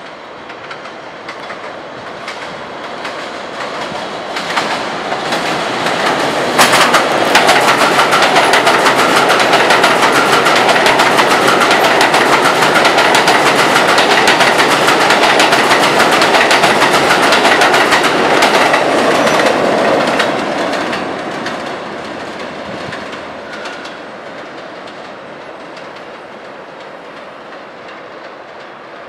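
A New York City subway train running past the station on elevated track: it grows louder for several seconds, then passes loud with a rapid clatter of wheels over rail joints and a sharp clank about seven seconds in, then fades away.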